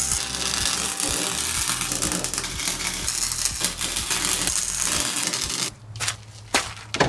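Arc welder crackling steadily while tacking bolts onto a steel strut top hat, over background music with a steady beat. The crackle cuts off abruptly about five and a half seconds in, leaving quieter sounds and a couple of short knocks.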